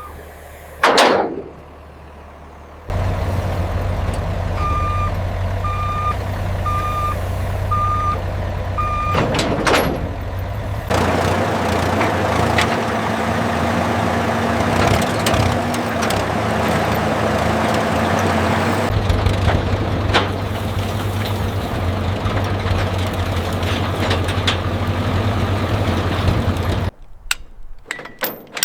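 Truck engine running steadily while a reversing alarm beeps five times, about once a second. The engine cuts off near the end, followed by a few sharp knocks.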